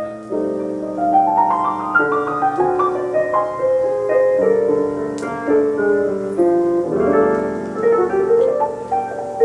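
Piano music playing back over a high-end stereo system, with quick rising runs of notes about a second in and again around seven seconds.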